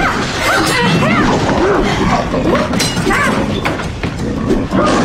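Fight-scene sound effects: repeated short yelling and grunting cries mixed with thuds and crashing impacts.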